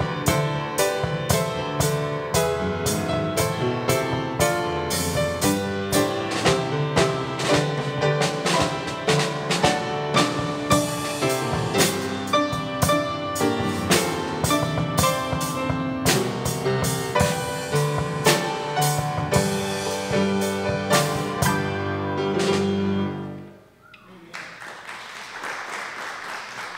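Grand piano and drum kit playing an instrumental piece together, the drums keeping a steady beat of about two strokes a second. The music stops about 23 seconds in, leaving a softer, even noise.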